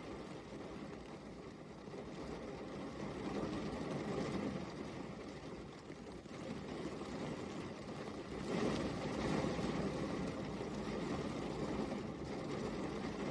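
Rain falling steadily, a continuous wash of noise that swells louder about a third of the way in and again past the middle.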